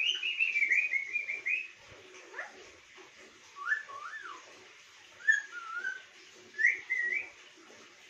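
Alexandrine parakeet whistling and chirping: a quick run of high chirps at first, then a single rising whistle, then three short whistled phrases that rise and fall.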